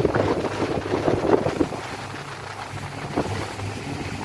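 Speedboat under way: a low steady engine hum under the rush and splash of water along the hull, with wind buffeting the microphone. The water noise is loudest for the first second and a half, then eases.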